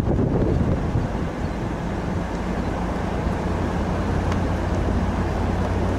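Pickup truck's Hemi V8 running at a steady cruise while driving, with a low engine hum under wind and road noise.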